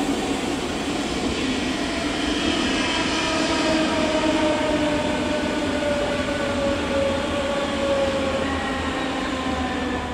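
Electric multiple unit running along the track away from the listener: rail and wheel rumble with the whine of its traction motors, several tones falling slowly in pitch.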